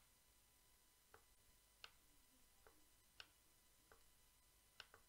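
Faint clicks of a computer mouse button, about eight spread unevenly, two in quick succession near the end.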